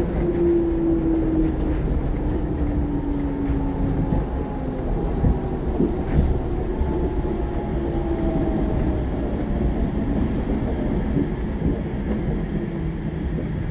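Nippori-Toneri Liner rubber-tyred guideway train running, heard from inside the car: a steady rumble of tyres on the guideway, with the electric traction motor's whine gliding down in pitch over the first few seconds. Fainter whining tones slide down a little later, and there are two short knocks about five and six seconds in.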